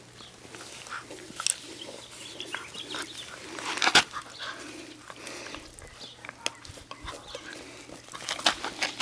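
Doberman Pinscher puppy making soft, short vocal noises as it mouths a person's hand, with scattered crackles of dry leaves and twigs and a sharp click about four seconds in.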